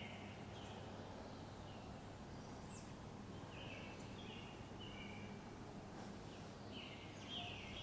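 Quiet outdoor background with faint, short bird calls now and then over a faint steady low hum.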